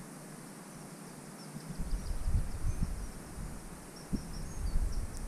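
Wind buffeting the microphone in gusts from about two seconds in, with faint high chirps in the background.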